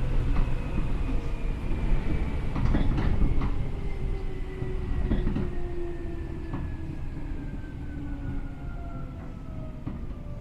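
Seibu New 2000 series electric train heard from inside the car, slowing down: its motor and gear whine falls steadily in pitch over the rumble of the wheels, with scattered clicks from the rail joints.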